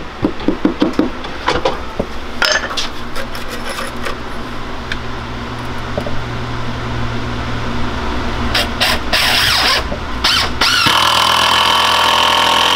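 A few hammer taps on a wooden board, then a cordless drill driving screws into the wood: the motor runs in short bursts, then in one longer steady run near the end.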